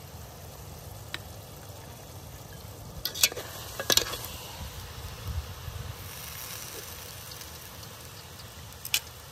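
Metal tongs knocking against a ceramic plate as a whole cooked chicken and a clump of cooked green stems are set onto it: a sharp clink about three seconds in, another about a second later, and one more near the end, over a steady hiss like faint sizzling.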